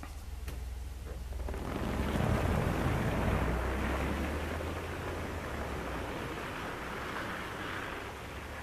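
Ford F-150 pickup truck pulling away on a snowy road: the engine and tyre noise build about a second and a half in, then fade slowly as the truck drives off, over a steady low engine hum.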